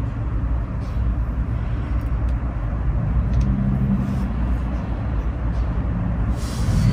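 Steady low rumble, with a few faint clicks as a tube of high-temp gasket sealant is opened and handled.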